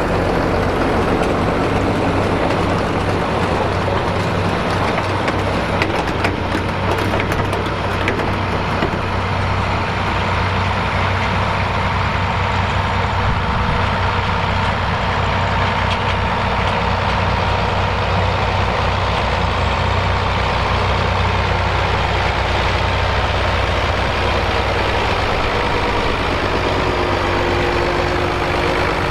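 Fiat 110-90DT tractor's diesel engine running steadily, with a faint high whine through the middle stretch.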